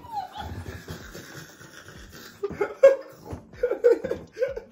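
People laughing in short bursts, starting about halfway in after a quieter, muffled stretch.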